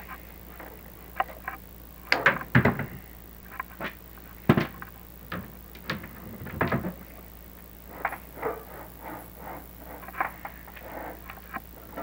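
Irregular knocks, taps and scrapes from a chimney inspection camera and its cable rubbing against the brick walls of a flue as it is lowered, over a faint steady low hum. The loudest knocks come about two, two and a half and four and a half seconds in.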